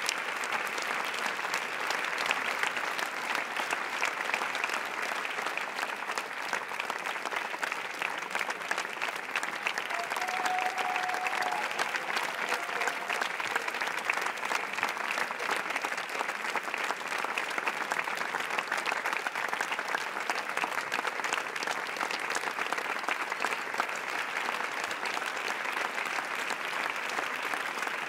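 A large audience applauding: many hands clapping at once in a dense, steady crackle that keeps up without a break.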